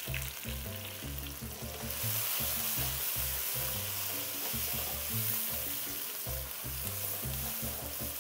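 Onions, garlic and tomatoes sizzling in hot oil in a wok as they are stirred; the sizzle grows louder about two seconds in. Background music with a low bass line plays underneath.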